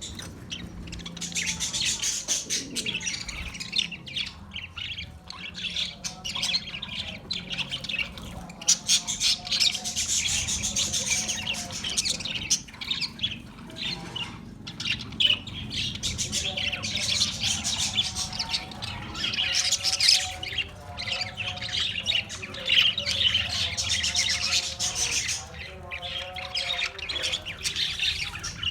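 Many budgerigars chattering together: a dense, continuous warble of high chirps and squawks that rises and falls in waves.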